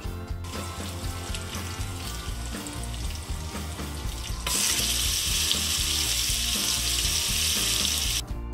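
Hot oil sizzling in a stainless steel pressure cooker as mustard seeds and whole dried red chillies fry for a tempering. The sizzle is moderate at first, becomes much louder about halfway through and stops abruptly near the end.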